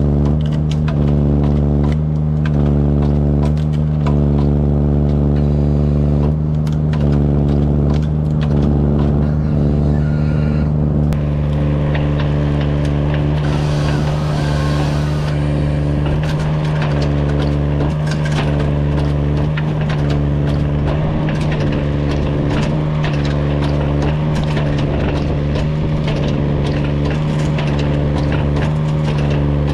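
Engine of a Kranman Bison 11000 mini forwarder running steadily under hydraulic load, its note dipping about once a second as the crane and Jobo ST35 harvester head are worked. From about ten seconds in, sharp knocks and cracks come from the head gripping and delimbing a small stem, with a brief hiss a few seconds later.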